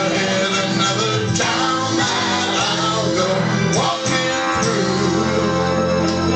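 A country-pop song playing, in an instrumental stretch between sung lines.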